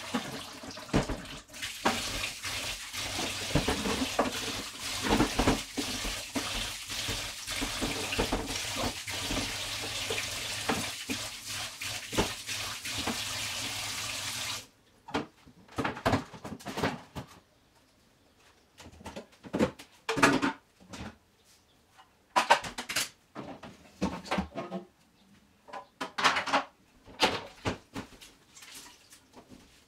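Water running from a tap into a sink, with things clattering in it, cutting off suddenly about halfway through. Scattered knocks and clatters follow.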